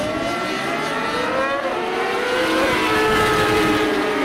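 A pack of racing motorcycles accelerating, several engines revving up together with rising pitch that drops back at gear changes.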